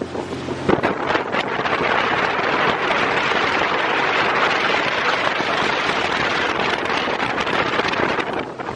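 Steady rushing wind noise buffeting the microphone, with a few light knocks in the first second and a half.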